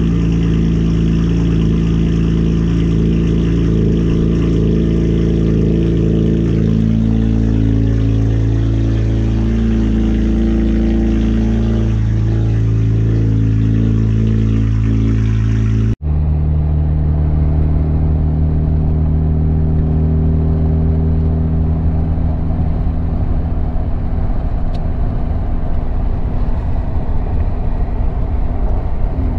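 Straight-piped 2008 Acura TL Type S 3.5-litre V6 idling after a cold start, heard at the tailpipes, its pitch shifting slightly partway through. About halfway in, it cuts to inside the cabin while driving, the engine a steady drone over road noise.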